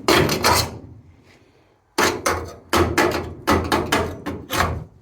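Hammer striking stick-weld slag on steel hat channel to chip it off. One strike at the start rings out, then after about two seconds comes a quick run of strikes, about three a second.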